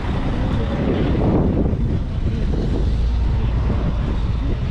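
Wind buffeting the microphone as a steady, fluctuating low rumble, with faint crowd voices beneath it.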